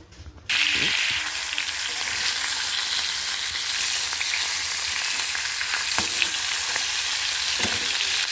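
Turmeric-marinated fish pieces sizzling in hot oil in a wok. The loud, steady hiss starts suddenly about half a second in as the fish goes into the pan, and a spatula scrapes the pan a couple of times near the end.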